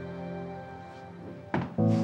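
Background score music with sustained notes fading, then a sudden thump about one and a half seconds in, followed by a louder new chord.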